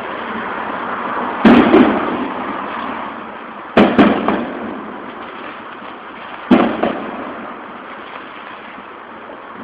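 Aerial fireworks bursting: three loud bangs about a second and a half, four and six and a half seconds in, the middle one a quick double, each trailing off in an echo over a steady hiss.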